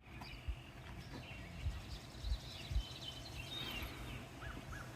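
Faint bird chirps over quiet outdoor ambience, with a few soft low thumps.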